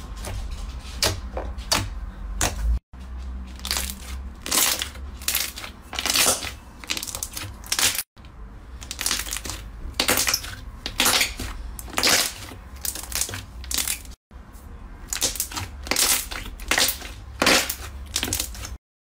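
Slime being squeezed, pressed and poked by hand, giving repeated crackling, popping squishes about twice a second. The sound breaks off into brief silences three times where short clips are cut together.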